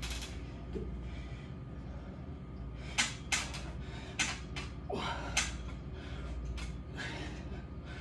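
A man doing dips on a steel power tower: from about three seconds in, a string of short sharp sounds, forceful exhaled breaths and knocks of the frame. A steady low hum runs underneath.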